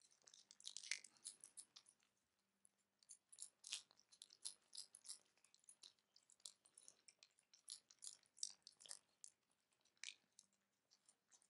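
Two Norwegian Forest Cats licking and chewing a treat from a person's hand. The sound is faint, quick and irregular: wet clicks and smacks, a few a second, with a denser run about a second in.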